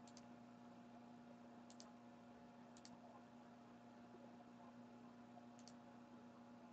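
Near silence: a faint steady electrical hum, with faint double clicks of a computer mouse four times.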